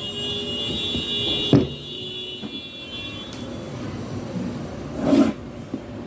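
Cardboard product box being handled and opened: a sharp knock about a second and a half in, then a rasping rub of cardboard sliding against cardboard near the end.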